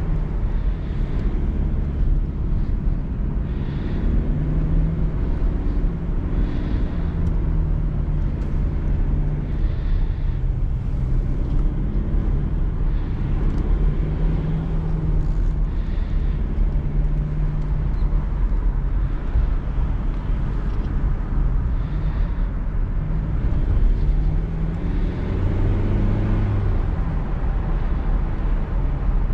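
Mercedes-Benz E220d's four-cylinder turbodiesel running under way with the roof down, its note rising and falling with the throttle over a steady rumble of wind and road noise.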